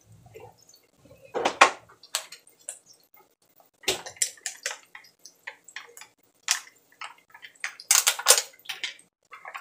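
Scattered clicks and clinks of kitchen dishes and utensils being handled at irregular intervals, with a short, louder clatter near the end.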